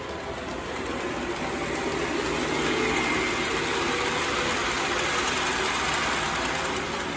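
O gauge model freight train rolling along three-rail metal track, a steady rumble of wheels on rails that swells about a second in as it passes close and eases near the end.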